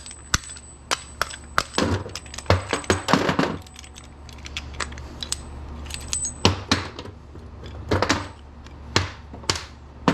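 Metal scrap parts clinking and knocking against each other and on a work surface, a scattered series of sharp clinks, over a steady low hum.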